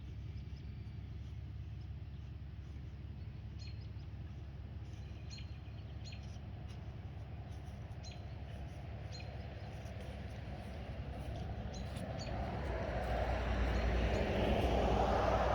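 Small birds chirping now and then over a steady low outdoor hum, with a broad whooshing swell of noise that builds over the last few seconds.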